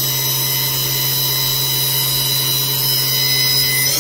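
Haas VF-2SS vertical machining center spindle spinning steadily at 8,000 rpm, a steady whine of several tones. Right at the end it starts winding up in pitch as it accelerates toward 12,000 rpm.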